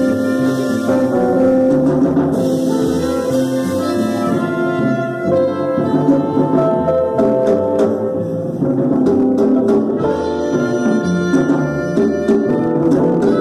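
Small jazz combo playing live: trumpet and alto saxophone sounding horn lines together over upright bass and drums, with the drum strokes growing busier about five seconds in.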